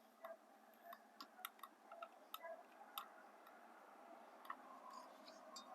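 Faint, irregular small clicks and ticks of wire connectors and wires being handled and twisted together by hand, over near silence.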